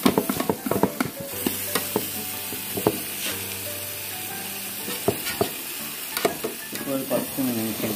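Marinated chicken pieces sizzling in oil in a metal pot, while a perforated metal skimmer scrapes and clicks against the pot as the pieces are turned over. The clicks are thickest in the first few seconds and come again past the middle.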